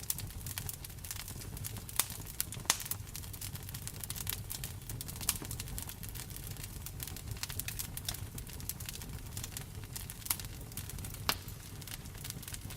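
Wood fire in a fireplace crackling continuously, with a few louder sharp pops, over a steady low rumble.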